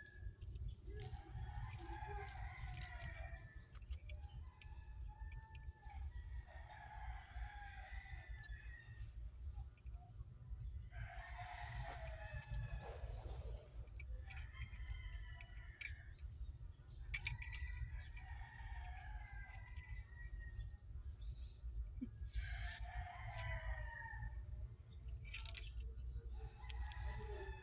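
Chickens calling over and over, with a rooster crowing among them: short calls of about a second each, one every two or three seconds.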